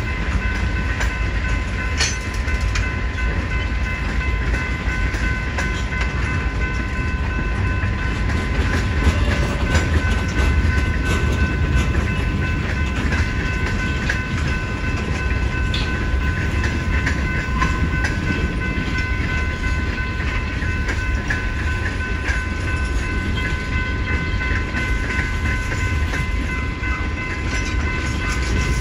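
Freight train of tank cars and hopper cars rolling past at a grade crossing: a steady rumble with wheels clicking over the rail joints. Several steady high tones sound over it.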